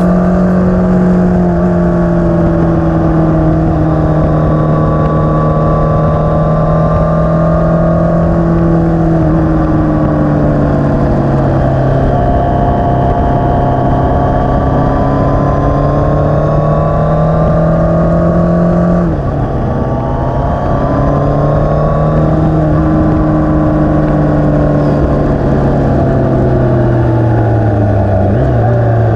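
Yamaha FJR1300A's inline-four engine running at road speed, its pitch slowly rising and falling with the throttle and dropping suddenly at a gear change about two-thirds of the way through, with wind rushing over the microphone.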